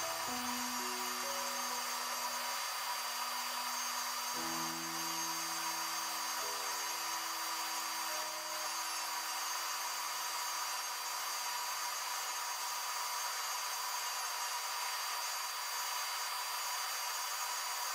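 Dremel rotary tool with a sanding drum running steadily with a high whine as it sands a wooden carving blank. Soft background music with long held low notes plays underneath.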